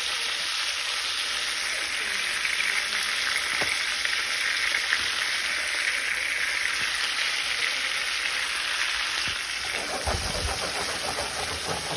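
Melted butter sauce sizzling steadily in a nonstick skillet holding shrimp, lobster tails, corn, sausage and potatoes. A few knocks and low rumbles from the pan being handled come in near the end.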